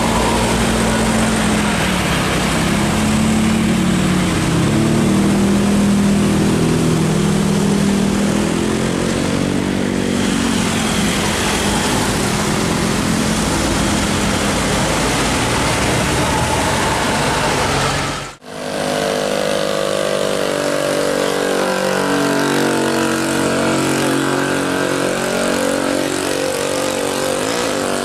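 Bus telolet horns, a set of multi-tone horns, playing a stepping melody over a bus engine running. The sound breaks off briefly about 18 seconds in, then another tune of horn notes plays.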